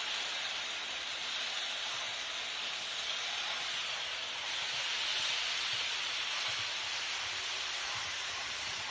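Märklin HO-scale model train, an NS Class 1700 electric locomotive hauling a long rake of passenger cars, running along the layout track. Its wheels on the rails make a steady hiss that swells a little about halfway through.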